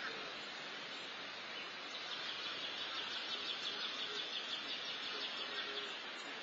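Outdoor background noise with high, fast chirping, which grows louder for a few seconds in the middle.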